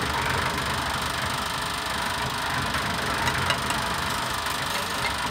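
A small electric mortar mixer running steadily, while a paper cement sack's top is torn open by hand, with paper rustling and a few sharp clicks about three seconds in.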